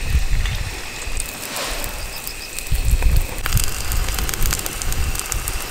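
Food starting to sizzle and crackle on a hot camping griddle from a little past halfway, over a low, uneven wind rumble on the microphone.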